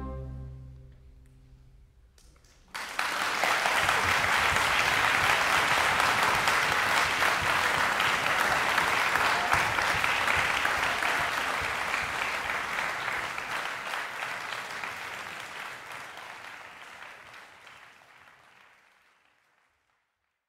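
The last chord of a piano and chamber orchestra dies away in the hall's reverberation. About three seconds in, an audience breaks into applause, which goes on steadily and then gradually fades out near the end.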